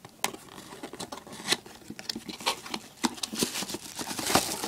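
A small cardboard blind box being opened by hand: irregular scrapes, clicks and rustles of card, with a denser crinkly rustle near the end.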